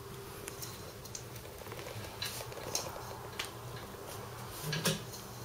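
Light, scattered ticks and pats of chopped scallions being sprinkled by hand onto rolled-out dough on a wooden board, with a slightly louder tap near the end, over a faint steady hum.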